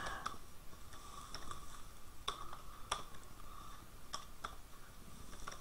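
Faint, scattered clicks of a computer keyboard and mouse, about seven in all, as text is typed into a text box. A faint steady hum runs beneath.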